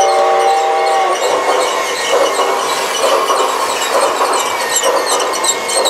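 Battery-operated G-scale toy train running past on its track: a steady mechanical running noise with scattered clicks.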